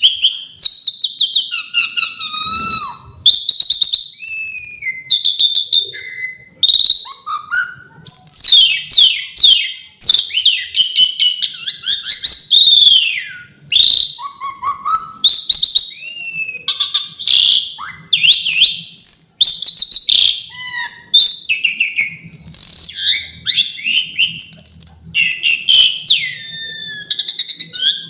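Asian pied starling (jalak suren) singing a continuous, varied song of loud whistles, sweeping notes and fast chattering trills, packed with phrases it has learned from other birds.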